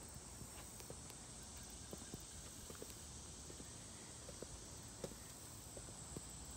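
Faint footsteps on asphalt, a scattering of light irregular taps over a low steady hiss.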